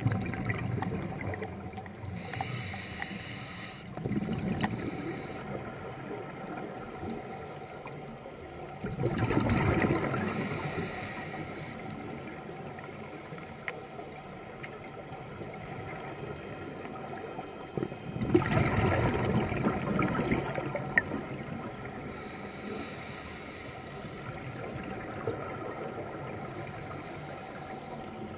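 Underwater sound of scuba breathing: a diver's regulator with rushes of exhaled bubbles coming in surges every several seconds, the loudest about nine and eighteen seconds in, over a steady underwater hiss.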